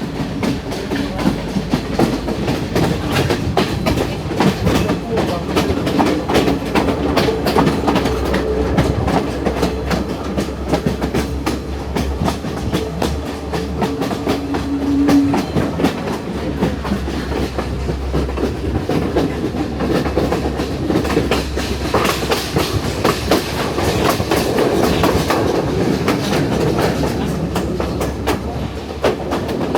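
Passenger train running on the hill-country line, heard from aboard: a steady rumble with a constant rapid clatter of wheels over the rail joints and track.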